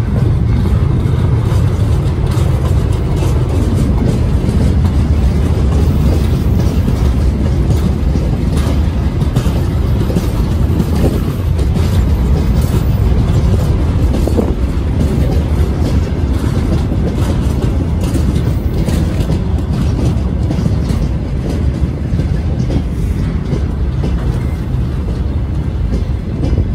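Freight wagons (hopper and gondola cars) rolling past at low speed: a steady low rumble of steel wheels on the rails, with scattered clicks and clacks from the wheels and couplings.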